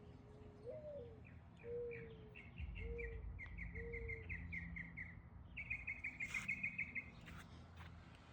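Birds singing: two runs of fast, high trilled chirps, about ten notes a second, the second run louder, with a few lower whistled notes in the first seconds.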